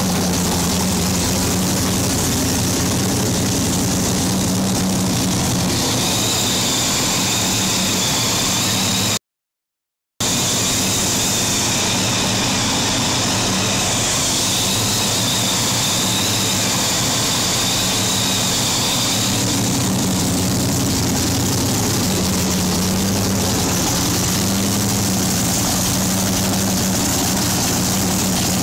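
Fountain race boat's inboard engine running steadily at idle on its trailer, cooled by water fed from a garden hose through the drive. The sound cuts out completely for about a second near the middle.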